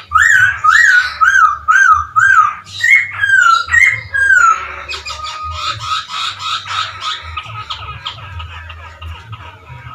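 A poksay hongkong laughingthrush singing: loud looping whistled phrases, about two a second, for the first four seconds or so, then quieter fast chattering over a held whistled note.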